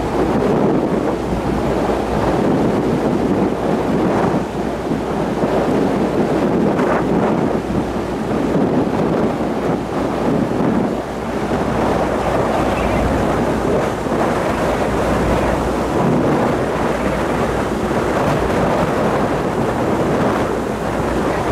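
Wind buffeting the microphone on the deck of a car ferry under way, over the steady rush of the sea churned along the hull. The noise swells and dips but never stops.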